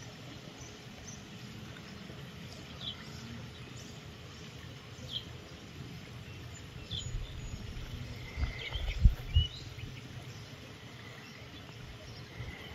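Outdoor rural evening ambience: a steady low rumble with a few short bird chirps here and there. Two strong low thumps come about nine seconds in.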